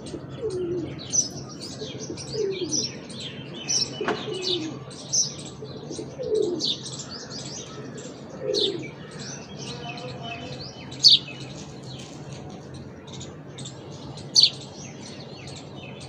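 Small birds chirping and tweeting over and over, with a few louder, sharp chirps in the second half. Several short, low, falling calls come in the first half.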